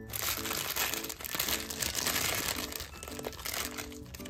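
Clear cellophane wrapping crinkling and crackling as hands pull it open, loudest for the first three seconds and easing near the end.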